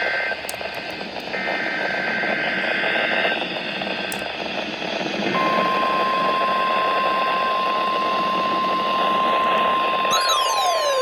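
NOAA Weather Radio broadcast heard through heavy radio static: two bursts of warbling digital data tones (the SAME header of the emergency alert), then about five seconds in the steady single-pitch weather alarm tone. Near the end a siren-like tone that sweeps up and down joins the alarm tone.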